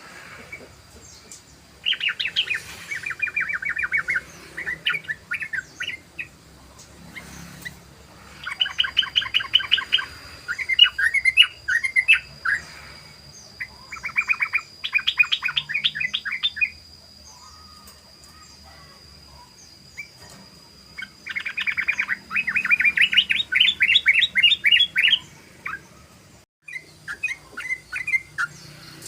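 Yellow-vented bulbul (trucukan) calling: bursts of fast rolling chatter, the 'ropel' call, each a few seconds long, with short pauses between.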